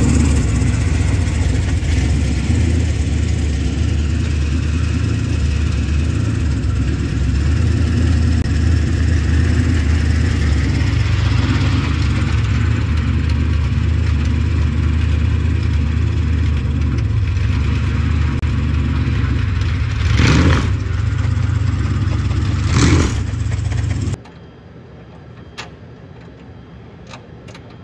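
Sport modified race car engine running steadily with a low, even drone, with two short louder blips of throttle about twenty and twenty-three seconds in. It cuts off abruptly a little before the end, leaving only faint clicks.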